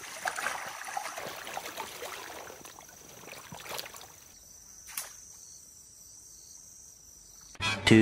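Pond water sloshing and splashing around a wader's legs as he moves through the shallow, weedy water, over a steady high insect trill. The sloshing fades about halfway through, leaving mostly the insect. A voice and music cut in abruptly near the end.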